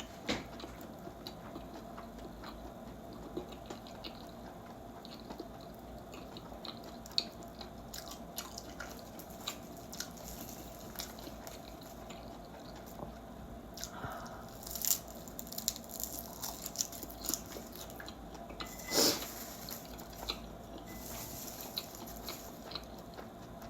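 A person eating close to the microphone: chewing with many small wet mouth clicks and smacks, and a few louder clicks about 15 and 19 seconds in.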